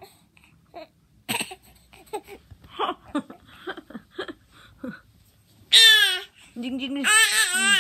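An infant's soft, short coos and babbling, then from about six seconds in loud, high-pitched drawn-out squeals that waver in pitch, verging on a cry.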